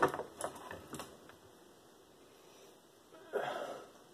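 Hard plastic clicks and knocks as an Optimus Prime transforming robot figure is set upright on a wooden table, the loudest knock right at the start and a few lighter clicks over the next second, then a short rustle of handling about three seconds in.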